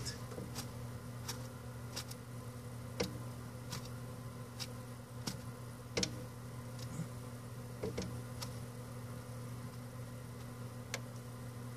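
A steady low electrical hum with about ten short, faint clicks at uneven gaps through it.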